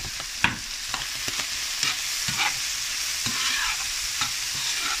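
Veal heart pieces and chopped hot peppers sizzling in a hot frying pan as a utensil stirs them, with a steady hiss and scattered clicks and scrapes against the pan, the sharpest about half a second in.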